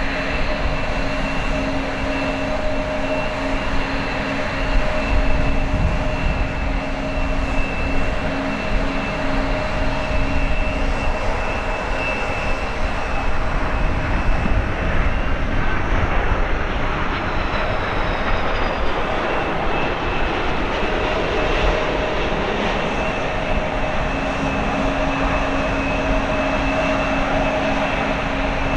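Airbus A330-300 jet engines running steadily: a loud rushing noise with several steady whining tones.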